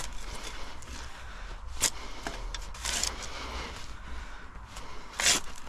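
A shovel cutting into and turning over soil mixed with dry plant debris: a series of short scraping crunches, the loudest near the end.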